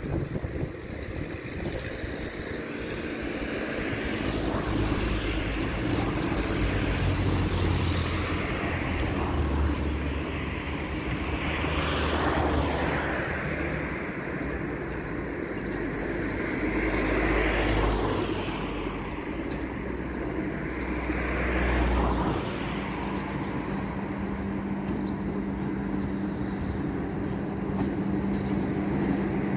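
Road vehicles passing one after another, each swelling and fading, about 12, 17 and 22 seconds in, over a low steady hum. In the last few seconds a steady low hum sets in as a locomotive hauling passenger coaches draws near.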